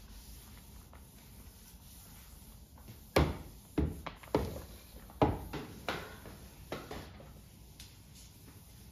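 Flat mop with a wet-wipe cover knocking against table and chair legs on a tiled floor: a run of about six sharp knocks in the middle few seconds, with quieter spells before and after.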